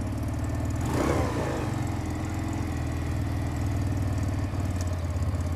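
X-PRO 125cc motorcycle engine idling steadily on a cold engine, just started and warming up, with a brief swell about a second in.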